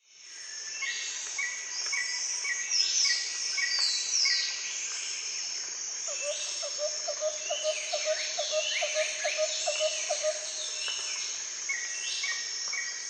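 Outdoor birdsong over a steady high insect drone, fading in at the start. Many falling whistled calls overlap with rows of short repeated notes, and an evenly pulsed lower call, about three or four pulses a second, runs from about six to eleven seconds in.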